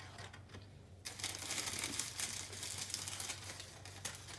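Thin plastic bag crinkling as it is handled, starting about a second in and lasting about three seconds.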